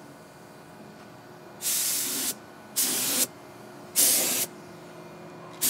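Paint spray gun giving three short bursts of hiss, each about half a second long and cut off sharply: quick test sprays to get the gun spraying properly.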